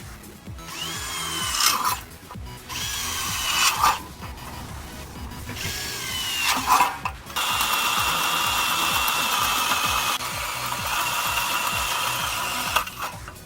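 Power drill running in several short bursts, its pitch climbing and then dropping with each one, and then in one longer steady run of about five seconds.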